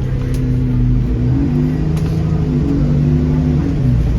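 Alexander Dennis Enviro400 Trident double-decker bus engine pulling under acceleration. Its steady drone rises in pitch a little over a second in, holds, then drops back just before the end.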